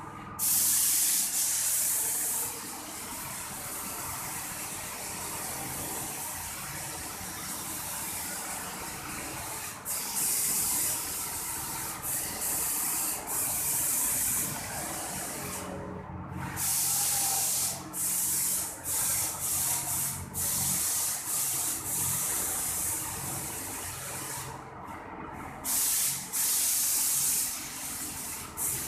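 Paint spray machine spraying wall paint in repeated on-off hissing bursts, some about two seconds long and others short, over a quieter steady running noise between bursts.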